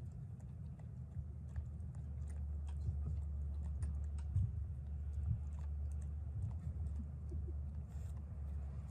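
A dog licking and chewing food off a long-handled spoon held through a wire kennel fence: scattered small wet clicks and smacks over a steady low rumble.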